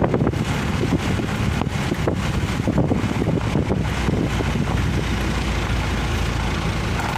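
Pickup truck being driven, heard from inside the cab: steady engine and road noise, with a few faint clicks in the first few seconds.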